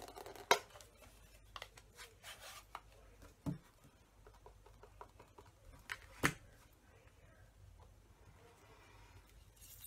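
Plastic craft items handled on a desk: an acrylic stamp block and a flip-top ink pad case. Two sharp clicks stand out, one about half a second in and one just after six seconds, with a duller knock at about three and a half seconds and light rustling between them.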